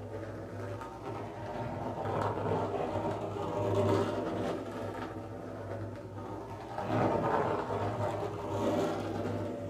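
A feather brushed and scratched across the skin of a hand-held frame drum in about four swelling strokes, over a steady low hum.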